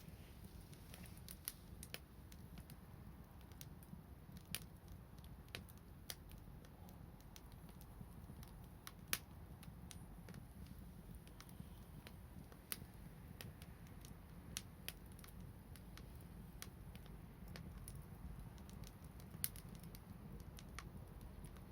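Wood fire crackling: faint, irregular sharp pops and snaps of burning wood over a low steady rumble.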